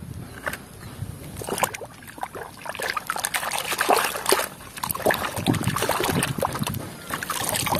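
A hand swishing and scrubbing a muddy plastic toy in a basin of soapy water: irregular splashing and sloshing, busier from about two and a half seconds in.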